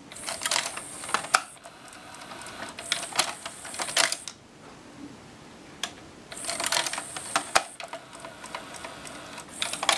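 Pioneer PD-M702 six-disc changer's magazine mechanism running with rapid clicking as the whole carriage moves to select disc 6. It runs in two spells with a pause of about two seconds in the middle.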